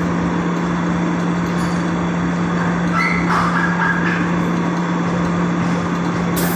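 Soviet industrial lapping machine running on its automatic cycle: a steady motor hum under a dense mechanical whirr, with brief squeaks about three seconds in and a short burst of hiss near the end.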